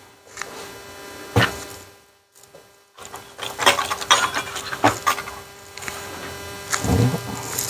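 Soldering on a circuit board: a steady electrical hum under scattered small clicks and crackles as the iron works a joint, with a brief dead-quiet gap about two seconds in and a soft low thump near the end.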